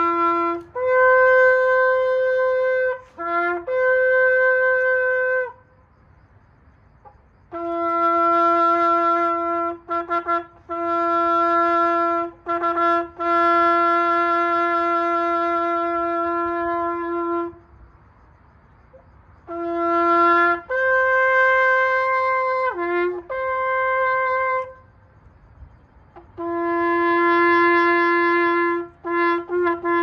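A long curved shofar blown in a series of blasts: held notes that jump between a low note and a higher one, broken here and there by quick stops, with the longest blast held about ten seconds near the middle. The phrases are separated by pauses of a second or two.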